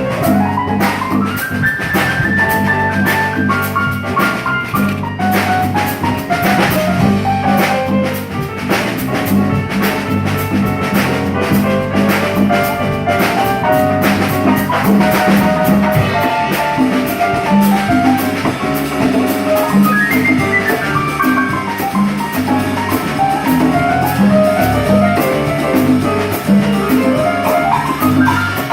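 A live band playing an instrumental tune, with a drum kit keeping a steady beat under bass notes and a melody that slides up and down in pitch at a few points.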